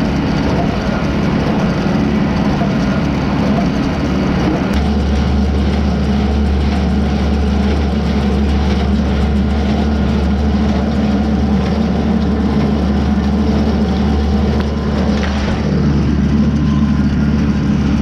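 Tractor engine running steadily while pulling a New Holland 273 small square baler, heard from the driver's seat. The engine's low hum becomes noticeably deeper and stronger about five seconds in.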